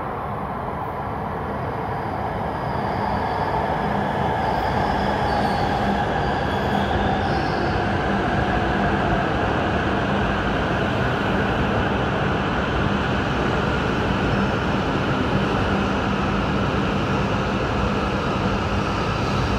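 E5 series Shinkansen bullet train pulling in along the platform: a rushing noise that swells over the first few seconds and then holds steady, with a whine falling in pitch as the train slows and a steady low hum later on.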